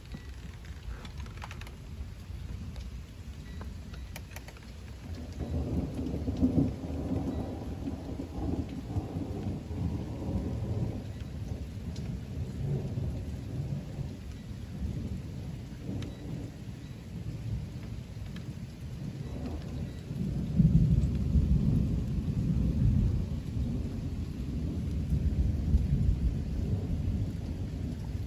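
Two long rolls of thunder over steady rain: the first starts about five seconds in, and the second, louder one about twenty seconds in.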